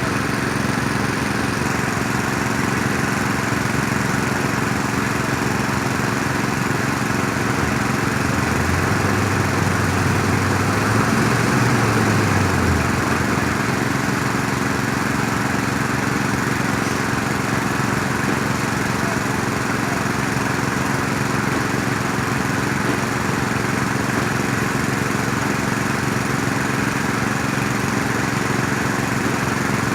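Diesel engine of heavy construction machinery running steadily. Near the middle, a deeper engine note comes in for about four seconds and rises briefly as it works harder.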